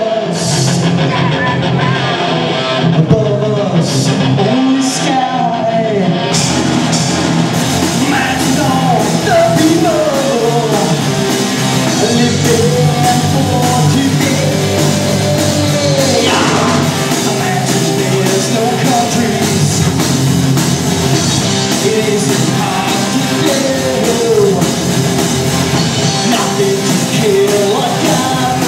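Live punk rock band playing: a singer over electric guitar, bass guitar and drums. Only a few cymbal hits at first, then steady cymbals from about six seconds in.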